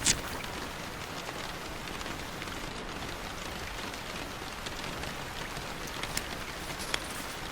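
Steady rain falling on a surface, with a few short sharp ticks standing out: the loudest just at the start and two more near the end.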